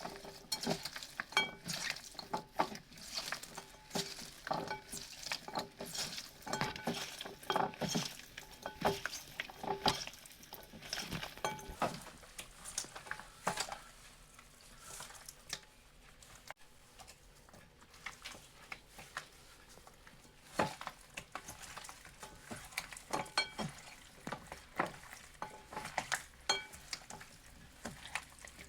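A kitchen utensil clinking, tapping and scraping against cookware while food is mixed, as irregular sharp clicks. They come thick and fast for about the first twelve seconds, then thin out to scattered taps.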